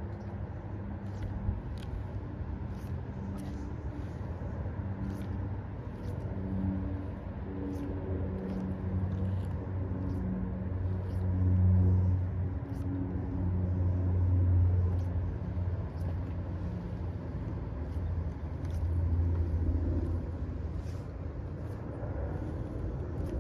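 Low rumbling hum of a motor vehicle's engine, swelling and fading several times as traffic passes, with faint light clicking over it.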